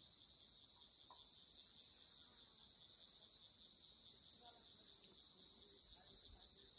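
Steady, high-pitched insect chorus, faint and unbroken.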